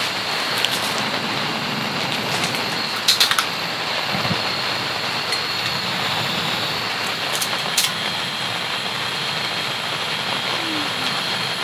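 Steady rain falling on the tent, a constant hiss. A few short crinkles of a plastic ramen packet being opened and handled stand out about three seconds in and again near eight seconds.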